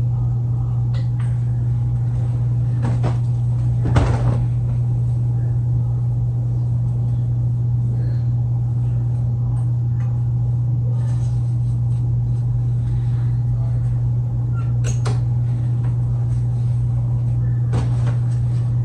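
Clothes hangers clicking and knocking on a closet rail as clothes are hung up, with a sharper clatter about four seconds in and another about fifteen seconds in. A steady, loud low hum runs underneath.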